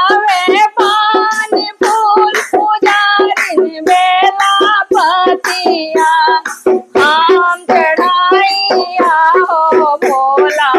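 Woman singing a Hindi devotional bhajan to Shiva, accompanying herself with a steady run of hand strokes on a dholak.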